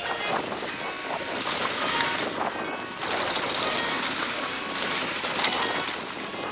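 Mountain bike rolling fast down a rocky dirt trail: tyres crunching over the ground with frequent clicks and clatter from the bike, louder from about three seconds in.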